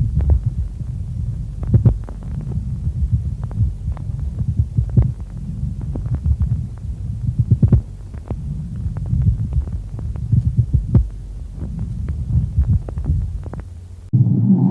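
Pleural friction rub heard through a stethoscope over the chest: intermittent, irregular crackling creaks in clusters every few seconds over a steady low body rumble. It is the sign of inflamed pleural layers rubbing together as the lung moves with breathing.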